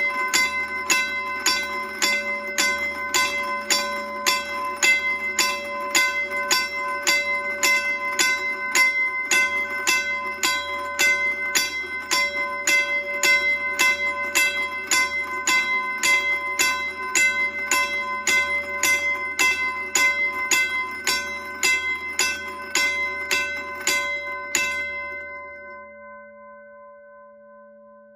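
1950s Western Railroad Supply Company motorized mechanical railroad crossing bell clanging at a slow, even pace of about two strikes a second. Its motor-driven hammer strikes the gong to a sharp ringing tone over the motor's low hum. Near the end the strikes stop and the last clang rings out and fades away.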